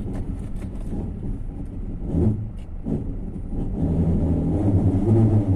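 Ford Transit van driving with the brakes lightly applied. Its running noise is the loudest sound, with a faint brake squeak that comes and goes. The owner traces the squeak to the brake caliper bracket and its guides.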